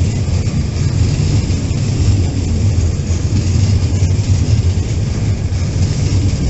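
Freight train of Hccrrs enclosed double-deck car-carrier wagons rolling past, a steady rumble of wheels on the rails.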